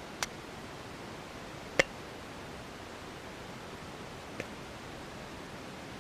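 Steady hiss of background noise with three short, sharp clicks, the loudest about two seconds in.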